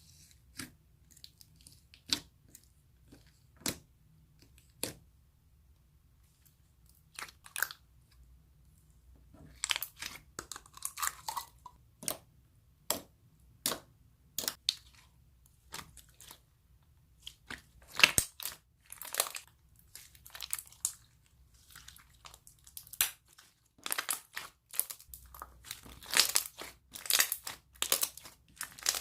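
Hands handling things at close range: scattered sharp clicks and short crackles, spaced out at first and growing denser and louder from about ten seconds in and again near the end.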